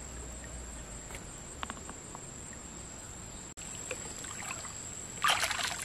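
Water sloshing and splashing as hands work through shallow muddy water, starting near the end, over a steady high-pitched insect drone.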